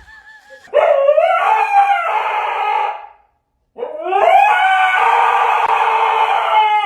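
A dog howling: two long howls, each rising at the start and then held steady, with a short pause between them.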